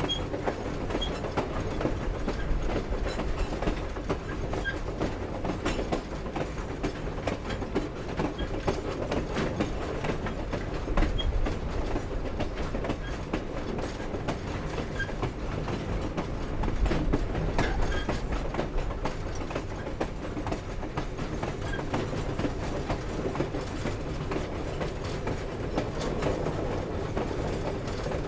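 Steam train running steadily on the rails: a continuous rumble of wheels on track, with frequent clanks and clicks from the cars and now and then a brief faint squeak.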